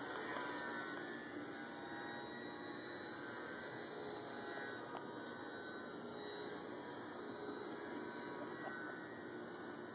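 Faint whine of a small RC airplane's 400-size brushless electric motor and propeller flying at a distance, its pitch drifting slightly up and down.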